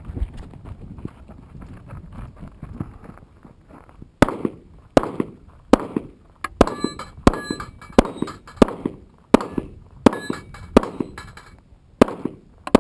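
Handgun fired at steel plates: about a dozen sharp shots starting about four seconds in, roughly one every three-quarters of a second. Some shots are followed by the short metallic ring of a struck steel plate.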